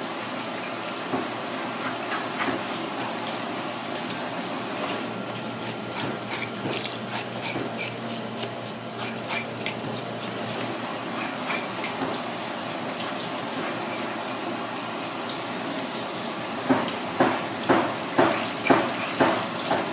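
Hose water running steadily over a red gurnard (sea robin) on a plastic cutting board while it is scaled with a metal fish scaler: light scraping through the middle, then about seven sharp scaler strokes near the end, two or three a second.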